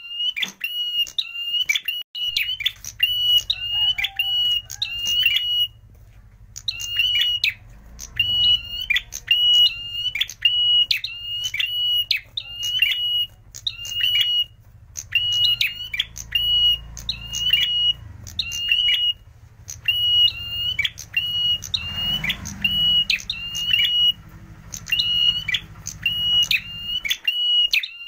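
Caged prenjak merah singing a fast string of shrill, short repeated notes, about two a second, in runs broken by brief pauses.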